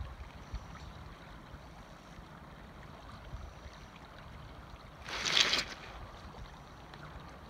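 River water running past a cobble bank, a steady wash, with a brief louder rush of noise about five seconds in.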